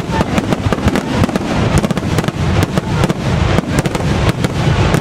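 Aerial fireworks shells bursting in rapid overlapping succession: many sharp bangs each second over a continuous low rumble.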